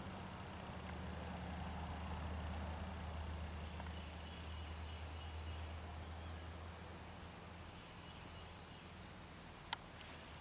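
Insects chirping in the open grass, a high, rapid, evenly repeated chirp of about four to five pulses a second, over a steady low rumble that fades after about seven seconds. A single short tick comes near the end.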